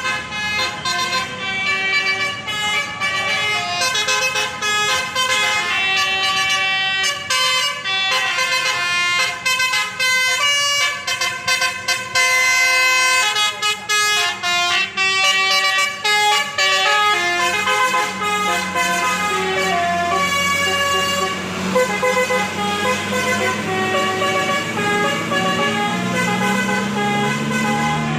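Basuri multi-tone 'telolet' air horn on a tour bus playing a fast tune of many short notes, the pitch changing every fraction of a second. A lower steady note joins under the tune in the last third.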